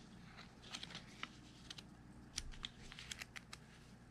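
Paper banknotes being flipped through and handled one by one: a run of quick, irregular crisp clicks and rustles of the paper.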